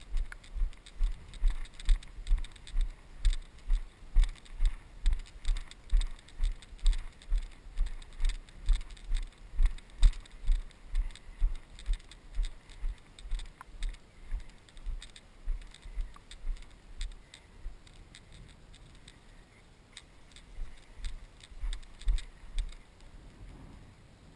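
Footsteps of a person walking through knee-high wet pasture grass, heard as a steady thump about twice a second through a body-worn camera, with the grass swishing. The steps fade and stop about three-quarters of the way through, then a few more come near the end.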